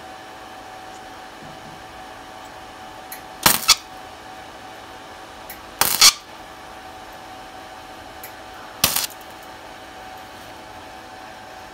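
MIG welder laying three short welds to fill holes in thin car-body sheet metal, each burst well under a second and about two and a half to three seconds apart. A steady hum runs underneath.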